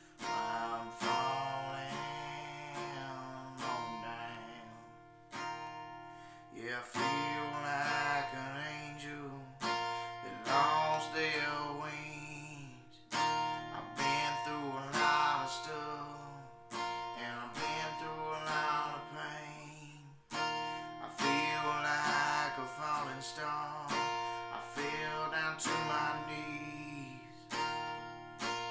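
Acoustic guitar music with a melody line over it, chords struck every second or two and left to ring out, with no sung words: an instrumental stretch of the song.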